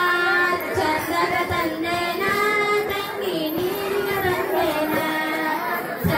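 Kannada folk song playing for a dance: a high voice sings long, slowly wavering notes over the music.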